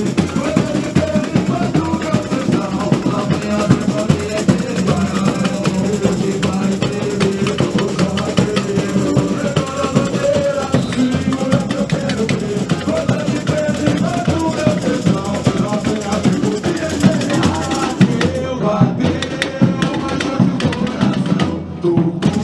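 Samba school drum section (bateria) playing a steady samba rhythm, dense percussion strikes over deep bass drum beats.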